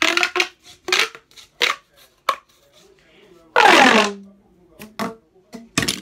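Plastic pop tube fidget popping and crackling as its ribbed segments are stretched and bent: a series of short sharp pops. A louder, longer burst comes about three and a half seconds in.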